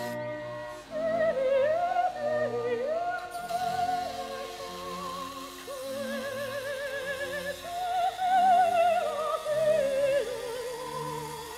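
Background music: a slow melody with wide, wavering vibrato over sustained low notes.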